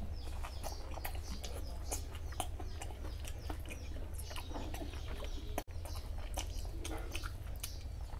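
Close-up wet chewing and mouth clicks of a person eating rice with mutton fat curry, along with the squelch of fingers mixing rice and curry on a steel tray. A steady low hum runs underneath.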